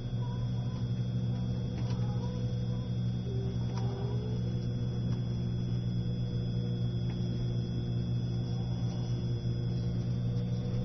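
E653 series electric train running slowly: a steady low drone with a thin, steady high-pitched whine over it.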